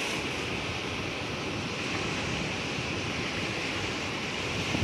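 Small surf waves washing over shallow water, with wind blowing on the microphone, making a steady rushing noise.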